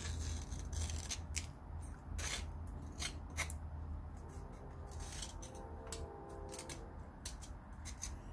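Small metal pick scraping and clicking around the axle output seal and shaft of a GM 8.25 front differential housing, in short irregular strokes.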